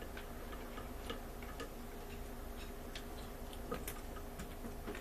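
Irregular light clicks and taps of a knife working on conch meat, trimming away the tough skin, over a faint steady hum.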